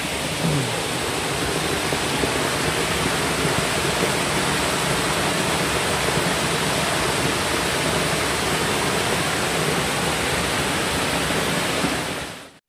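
Water pouring over a small weir into a pool: a loud, steady rush of falling water that cuts off abruptly near the end.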